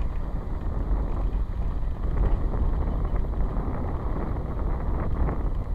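Steady wind buffeting the microphone of a camera carried in a moving vehicle, a low rumble mixed with road and vehicle noise.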